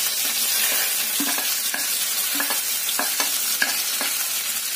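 Chopped onion sizzling hard as it hits hot oil and cumin in a steel kadhai, a steady hiss. A steel spoon clinks and scrapes against steel about five times as the onion is pushed off the plate.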